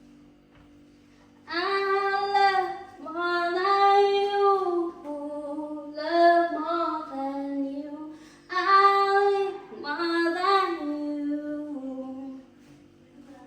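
A woman singing a song unaccompanied, in long held phrases with a short pause in the middle, over a steady low hum.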